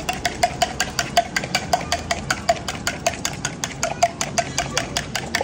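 Eggs with masala, green chutney and salt being beaten with a spoon in a cup: rapid, even clinking, about five or six strokes a second, each with a short ring.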